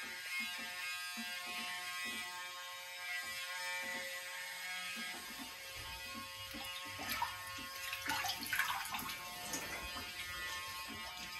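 A small electric motor or fan humming steadily, with a low rumble joining about five seconds in and some light crackling a little later.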